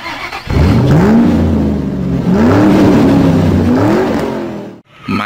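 A car engine revved three times, each rev rising in pitch and falling back, then cutting off suddenly near the end.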